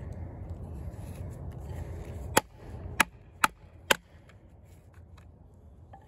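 A baton striking the spine of a Kizer Justice II D2-steel fixed-blade knife to drive it through hardwood: four sharp knocks about half a second apart, after a low rumbling noise.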